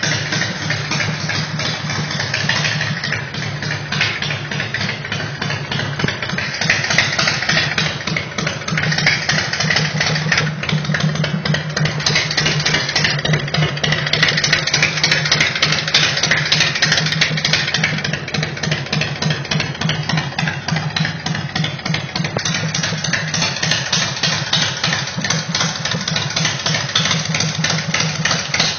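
2006 Big Dog Ridgeback motorcycle's V-twin engine idling steadily through its exhaust pipes, with a quick, even pulsing beat.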